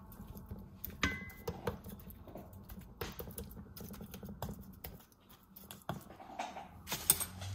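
Metal spoon clicking and tapping against a cast-iron skillet and the meat as oil is spooned over seasoned lamb shoulder chops. The clicks are light and irregular, and one about a second in has a brief metallic ring.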